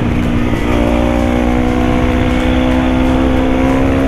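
Single-cylinder four-stroke supermoto motorcycle engine running at a steady cruising pace, recorded on the moving bike with wind rushing over the microphone. Its note breaks briefly about half a second in, then holds steady.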